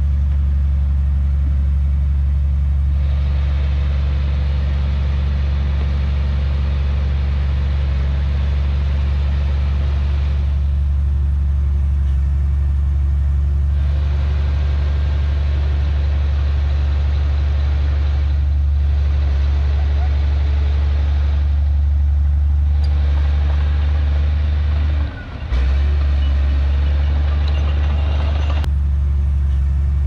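Heavy diesel earthmoving engine running steadily, a deep constant drone with changing noise above it, and a brief dip in level near the end.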